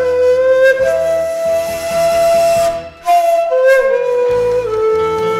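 Shakuhachi bamboo flute playing an enka melody in long held notes over an instrumental backing track, with a brief break about three seconds in.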